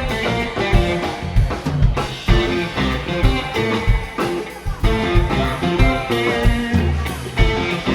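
Live rock band playing an instrumental passage with no vocals: guitars over bass, keyboard and a drum kit keeping a steady beat.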